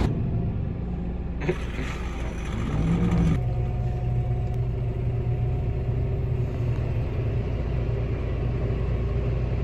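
JCB Loadall telehandler's diesel engine running steadily, heard from inside the cab. The sound changes abruptly twice in the first few seconds, then settles into an even hum.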